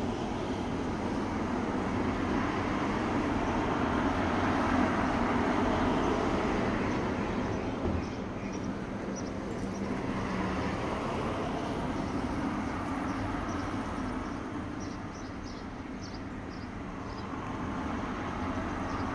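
Street traffic: a passing vehicle's road noise swells for several seconds and dies away about eight seconds in, then another car approaches near the end.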